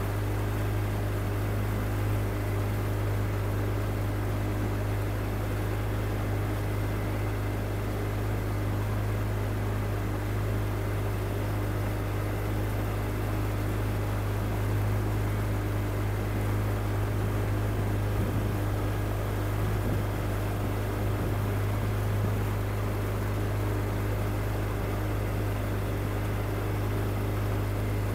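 Motorboat engine running steadily at cruising speed, a constant low drone, with water rushing and spraying along the hull.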